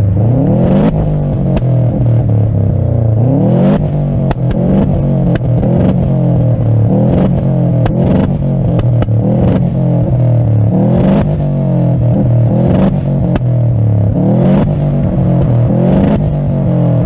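Subaru Impreza's flat-four engine being blipped over and over, the revs climbing and dropping back every second or two, with sharp pops and bangs in between. The engine is misfiring, which the owner suspects is down to worn spark plugs.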